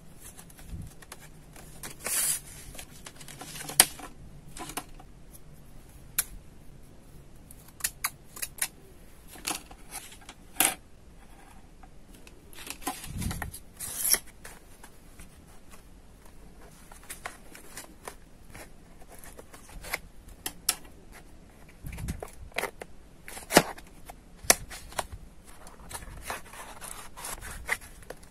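Plastic blister packaging and card being handled and opened by hand: irregular crinkles, rustles and sharp clicks, with a couple of dull thumps on the table, one about halfway through and one some seconds later.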